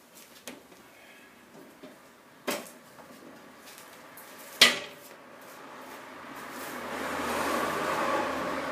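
Two sharp knocks a couple of seconds apart, the second louder, then a swelling scrubbing noise as a cloth is rubbed over a car's alloy wheel and tyre.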